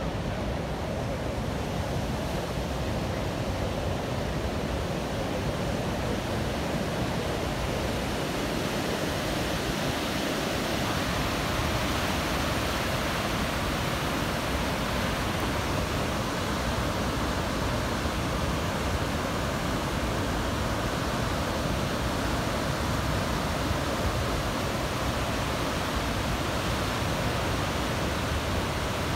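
Ocean surf breaking on the shore: a steady rushing noise that grows a little brighter about eleven seconds in.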